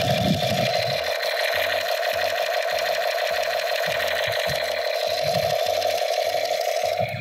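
Battery-powered light-up toy laser gun firing its electronic sound effect through its small speaker: a fast, buzzing machine-gun rattle that pulses about twice a second, showing the toy works.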